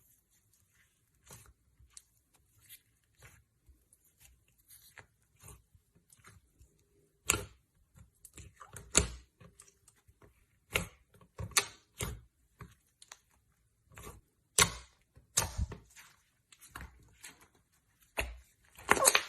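Slime being handled and pressed: irregular sticky clicks and crackling pops, faint and sparse at first, then louder and more frequent from about seven seconds in.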